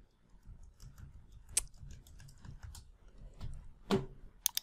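Computer keyboard being typed on: light, irregular key clicks, with two sharper clicks near the end.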